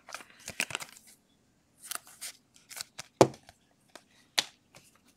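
Trading cards and a clear plastic card sleeve being handled: a string of short scrapes, flicks and clicks as the cards are shuffled and one is slid into the sleeve, with a sharper knock about three seconds in.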